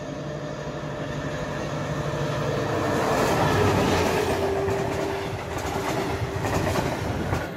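Locomotive-hauled freight train passing close by. It grows louder to a peak about halfway through, with wheels clattering over the rail joints as the wagons roll past, then cuts off suddenly at the end.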